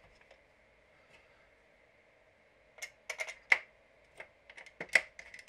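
Small screws being set into the holes of an Xbox One's metal shield plate: a run of light, sharp clicks and taps starting about halfway through, the loudest just after the middle, after a near-silent start.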